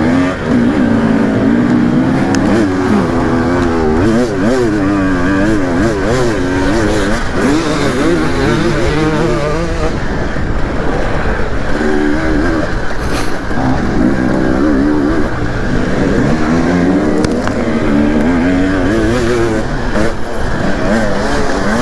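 Dirt bike engine under a rider at speed, revving up and down over and over as the throttle opens and closes through the gears.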